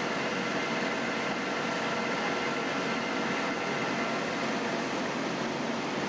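Steady mechanical drone with a faint, constant hum from idling emergency vehicles.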